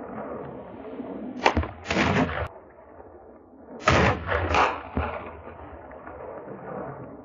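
Gunshots fired at running wild boar: sharp reports in two clusters, about one and a half to two seconds in and again around four seconds in.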